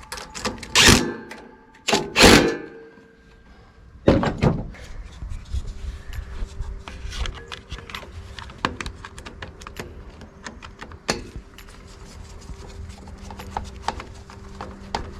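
Hand tools clanking on a small engine's metal parts during carburetor reassembly: three sharp metallic knocks in the first few seconds, then a long run of light clicks and taps.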